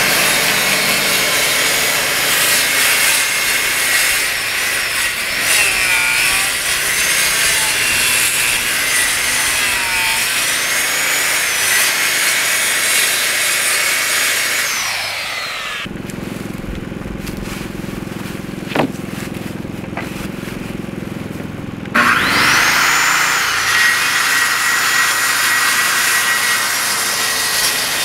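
Power saw cutting wood with a steady whine that wavers as the cut is fed. It drops to a duller, quieter sound about halfway through, then comes back sharply and keeps cutting.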